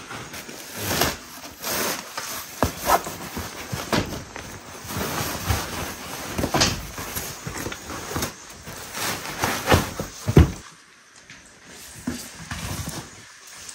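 Bedding and packages being handled: a fabric blanket cover rustling as it is pulled over a foam mattress, with scattered knocks and thumps. A sharp thump about ten seconds in is the loudest sound, followed by a brief lull.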